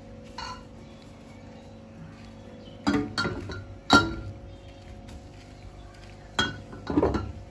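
Glass jars of water clinking and knocking as they are moved and set down in a row by hand: a few sharp clinks, the loudest about four seconds in.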